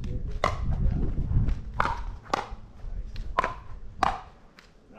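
Pickleball rally: about five sharp pops, unevenly spaced, as paddles strike the plastic ball, each with a brief ring.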